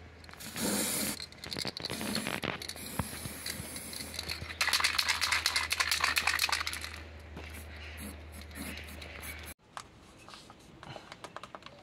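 Aerosol spray paint can hissing in bursts: a short one about half a second in and a longer, louder one from about five to seven seconds in, as black paint goes onto masked screw heads.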